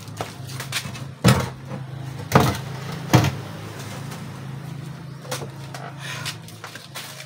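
Three heavy thumps close to the microphone, about a second apart, over a steady low hum.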